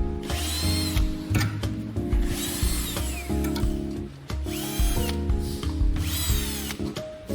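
Background music with a regular beat: held chords that change in steps, with a sweeping high sound about every second and a half.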